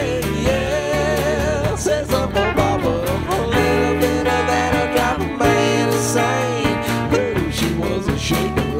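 Country song with guitar.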